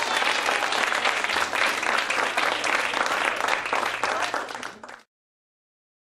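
Audience clapping after a children's song, a dense, continuous patter of many hands that fades out about five seconds in and gives way to silence.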